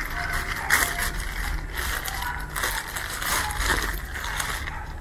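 Clear plastic bag crinkling and rustling in irregular bursts as hands squeeze and wrap it, packed with rooting medium, around a pomelo branch for an air layer.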